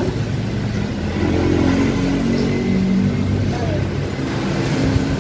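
Street traffic: a vehicle engine running past, loudest in the middle, over a steady low rumble, with indistinct voices behind it.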